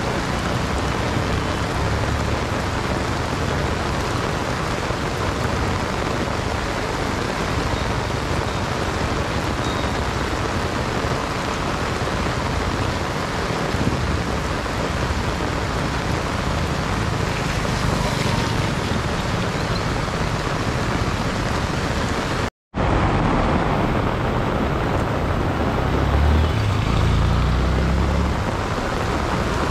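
Steady rain falling, an even hiss. It breaks off for an instant about two-thirds through, and a low rumble swells briefly near the end.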